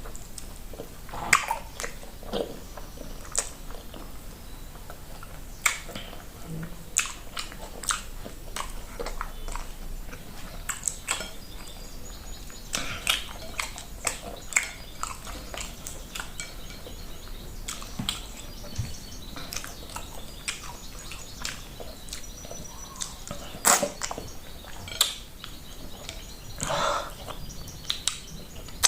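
Close-up mouth sounds of eating dry plantain fufu with okra soup by hand: chewing with irregular wet smacks and sharp clicks.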